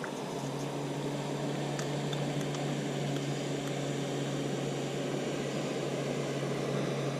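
Outboard motor of another bass boat running steadily at speed, a constant low hum over a wash of engine and water noise.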